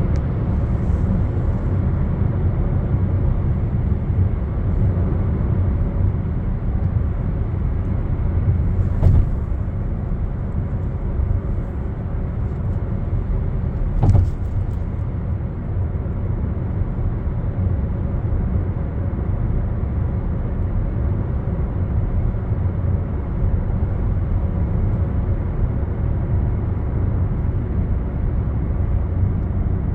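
Steady low rumble of a moving vehicle, with two brief knocks, about a third of the way in and again about halfway.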